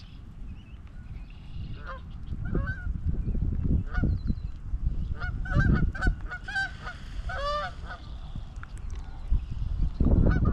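Geese honking, with short repeated calls about two seconds in and a denser run of honks from about five to eight seconds in, after a fight with a swan.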